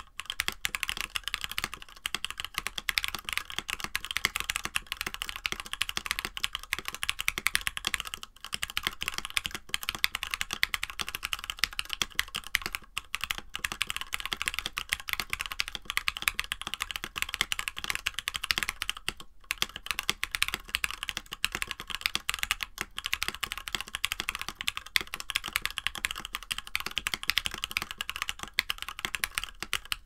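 Steady, fast typing on a Mode65 mechanical keyboard, top-mounted with no foam between the PCB and the aluminum plate, fitted with stock, unlubed SP-Star Meteor White linear switches and GMK-style clone keycaps. The keystrokes come in a dense, continuous stream, with a few brief pauses.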